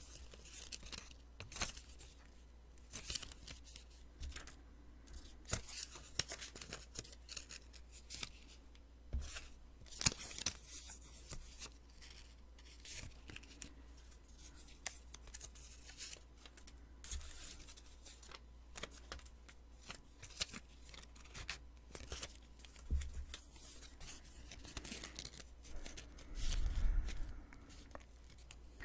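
Post-it sticky notes being peeled off and handled close to the microphone: an irregular run of short, crackly peeling and tearing rasps, with a low bump near the end.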